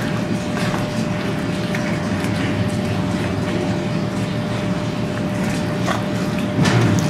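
Serval chewing and tearing at a chunk of raw lamb, with scattered short wet clicks and snaps from the bites over a steady low hum. A louder low sound comes in near the end.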